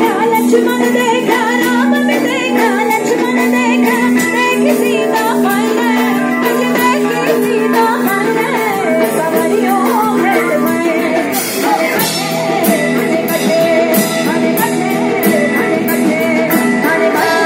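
Singing over a steady held accompaniment tone, the voice moving through wavering melodic runs; regular percussion strikes come in about two-thirds of the way through.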